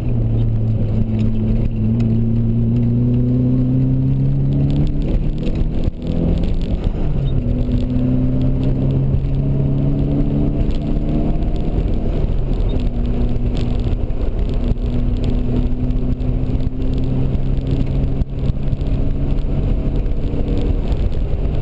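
Nissan 240SX engine at speed on a track, heard from inside the cabin. The revs climb and then fall twice, about six and about twelve seconds in, and hold fairly steady after that.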